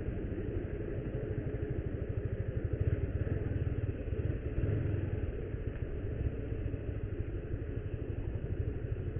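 Motorcycle engine running at low speed as the bike rolls along, a steady, fast, even pulsing.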